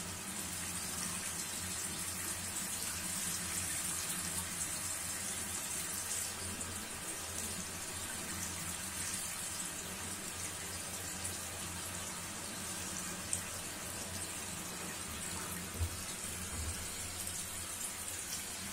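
Steady rush of running water, like a tap left on, over a low hum. Two brief knocks come in the last third.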